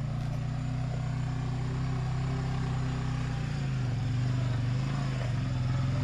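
Suzuki 400 ATV's single-cylinder engine running steadily under way on a rough dirt road, its pitch wavering slightly around the middle.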